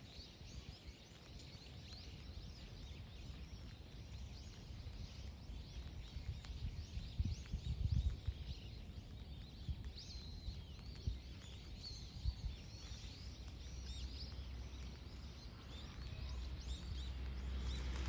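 Small birds chirping and twittering in many short, high calls throughout, over a low outdoor rumble that swells briefly about eight seconds in.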